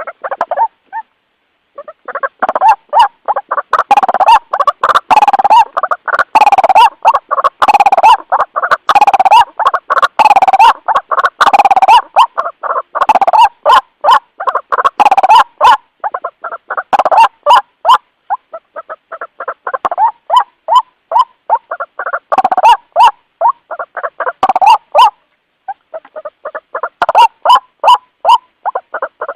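White-breasted waterhen (ruak-ruak) calling loudly: long bouts of rapid, repeated harsh notes, pausing briefly about a second in and again about 25 seconds in. This is the species' contact call to others of its kind, used as a bird lure.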